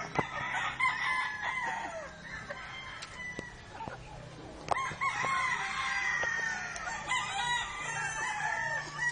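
Roosters crowing: two long crows, the first at the start and the second beginning almost halfway through, each held and then falling away at the end, with a few sharp clicks between.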